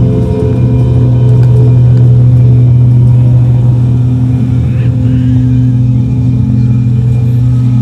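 A loud, steady low drone with a few held higher tones above it, from an amplified live sound performance using cymbals and metal bowls played through a speaker.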